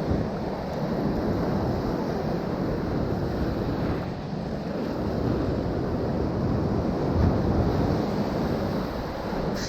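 Sea surf washing against shoreline rocks, a steady noisy rush that swells and eases, with wind rumbling on the microphone.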